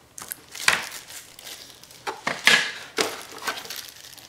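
Plastic packaging crinkling and rustling as small accessories are handled, in irregular bursts with two louder peaks, just under a second in and about two and a half seconds in.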